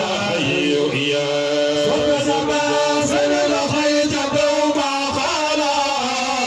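Male voice chanting an Islamic devotional song into a microphone, amplified over a PA, in long held notes that slide from pitch to pitch.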